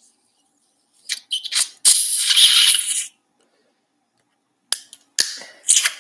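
Steel surgical instruments clicking and scraping in two short bursts, one about a second in and one near the end, as bone is taken from the floor of a dog's tympanic bulla with rongeurs. A faint steady hum sits underneath.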